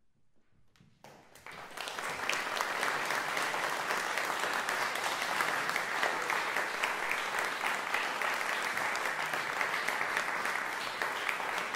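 Audience applauding: a few scattered claps about a second in, swelling quickly into steady, full applause.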